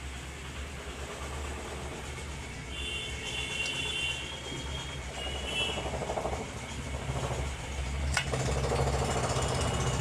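A steady low engine rumble that grows a little louder in the second half, with one sharp click about eight seconds in.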